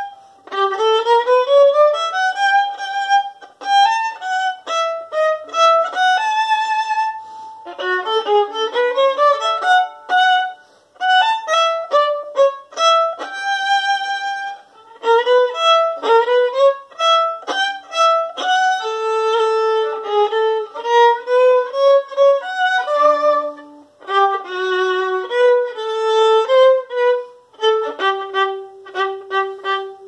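Solo violin bowed in a single melodic line: quick rising runs and held notes in short phrases, with brief pauses between them.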